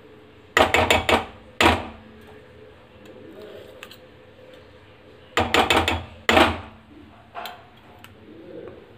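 A metal spoon knocking and scraping against a cooking pan and container as ghee is spooned in. The knocks come in two clusters of quick taps, about half a second in and again around five and a half seconds in, with a few single knocks between.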